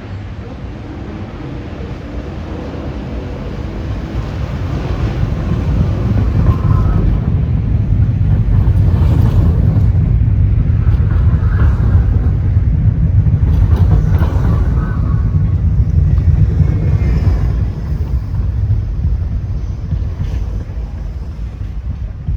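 New York City subway train running on elevated track, a low rumble that builds over several seconds, holds, then eases off near the end. Wind buffets the microphone.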